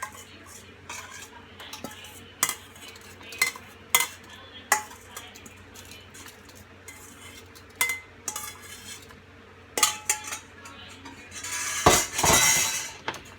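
Sliced jalapeños being packed into glass jars: irregular light clinks and taps against the glass, about a second apart, with a longer scraping rustle near the end.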